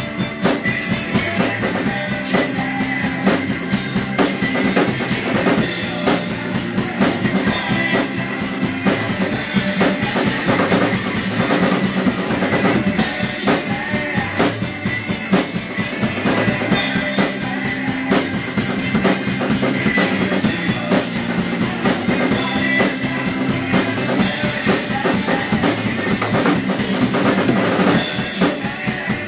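Drum kit played along with a rock band recording: a steady rock beat of bass drum, snare and cymbals over the song.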